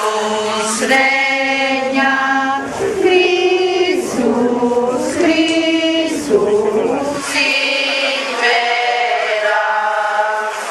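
A congregation of mostly women singing a hymn together in a slow melody of long held notes.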